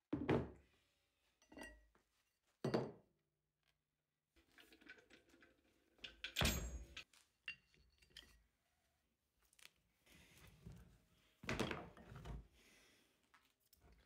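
Thunks and clanks of a resin pressure-casting pot and a weighted casting mold being handled on a wooden bench: four loud knocks spread through, with quieter metal clinks and scraping between.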